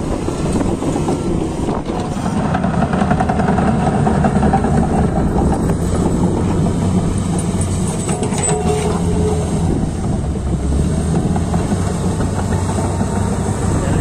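Komatsu D155A crawler bulldozer working close by, its diesel engine running steadily under load as the blade pushes and spreads dirt.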